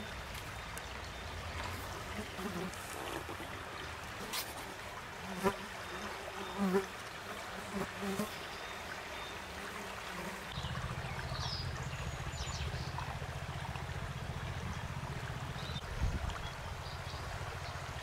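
Shallow forest stream trickling, with insects buzzing close by: a few short buzzes in the first half, then a steady low buzz from just after halfway. A few short high chirps sound around then.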